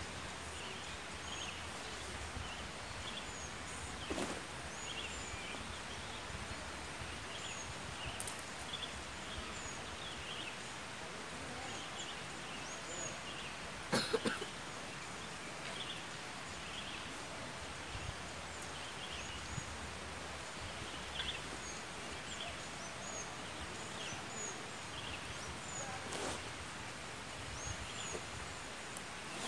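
Pine-forest ambience with many small birds chirping, short high calls repeating throughout, and a few light knocks from gear being handled, the loudest about halfway through.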